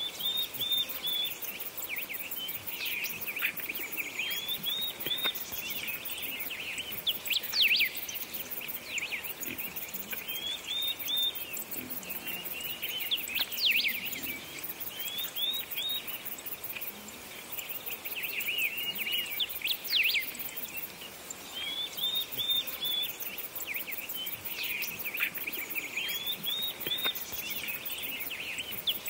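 Birdsong: short chirps and trills recurring every few seconds over a faint steady hiss.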